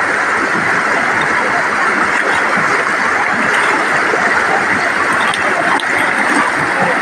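Steady rush of floodwater pouring over a spillway.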